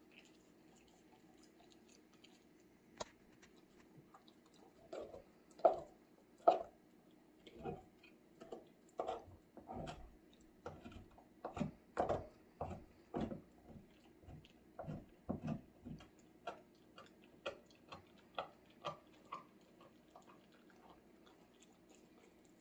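A dog gnawing and licking a raw marrow bone: irregular clicks and wet smacks of teeth and tongue on the bone. The two loudest come around six seconds in, and the chewing thins out near the end.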